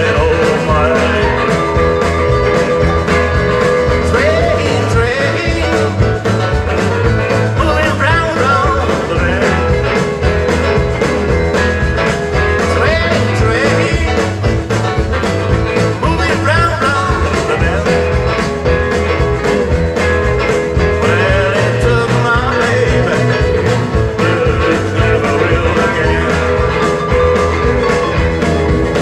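Live rautalanka band playing an upbeat rock-and-roll number: electric guitar melody over bass and a steady drum beat.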